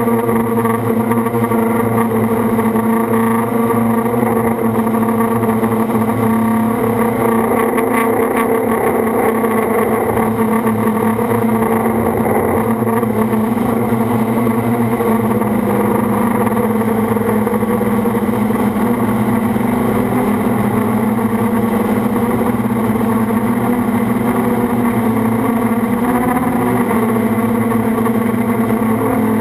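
FPV quadcopter's electric motors and propellers buzzing, heard from the drone's own camera: a loud, steady whine whose pitch wavers a little with the throttle and dips briefly near the end.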